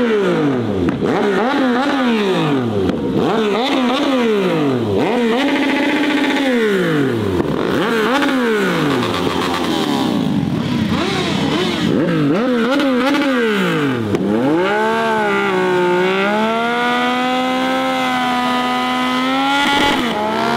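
Car engine revved hard again and again, each rev climbing and dropping, about once a second. After about fourteen seconds it is held at high revs, the pitch wavering slowly.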